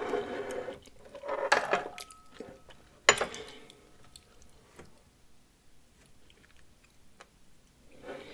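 A heavy ceramic bowl is handled and shifted on a wooden board, with scrapes and knocks. There are three bursts in the first few seconds, the loudest a sharp knock about three seconds in that rings briefly, then only small faint clicks.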